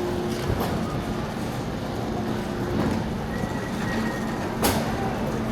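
Shopping cart rolling and rattling over a store's hard floor amid a steady store din with a low hum, with a sharp clack about four and a half seconds in.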